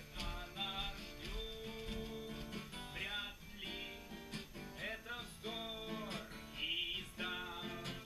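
Acoustic guitar being strummed and picked, playing a song's melody and chords.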